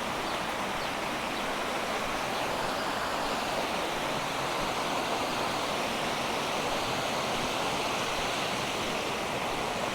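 Steady rush of water cascading over a waterfall and running down the river.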